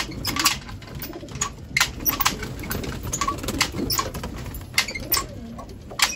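Pigeons cooing in a loft, with many short sharp clicks and knocks scattered through.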